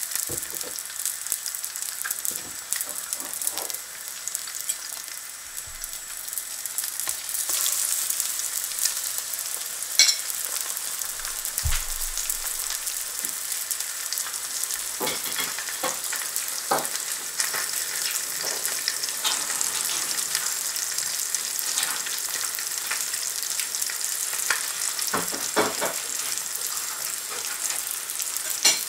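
Back bacon, black pudding and a slice of eggy bread frying in fat in a carbon steel pan: a steady sizzle with scattered pops and crackles. One sharper click about ten seconds in.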